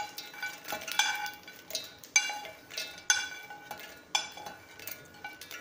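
Roasted makhana (fox nuts) tipped from a pan into a stainless-steel mixer-grinder jar: the pan knocks against the steel jar about once a second, each knock ringing briefly, with lighter clicks of the nuts dropping in between.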